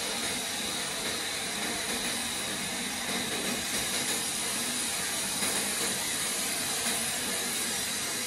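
Bosch electric paint sprayer running steadily: the whine of its air unit and the even hiss of air and paint from the spray gun, with a faint high steady tone.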